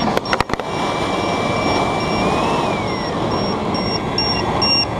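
Steady rushing roar of a kerosene fire burning at the combustion chamber of a homemade electric-compressor jet engine, after its compressor has stopped on flat batteries while fuel keeps flowing. A few sharp knocks in the first half second, and faint electronic beeping repeating throughout, quickening near the end.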